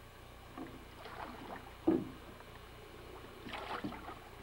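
Aluminum boat being pushed along with a wooden paddle and a pole: faint splashes and scrapes, with one sharp knock about two seconds in.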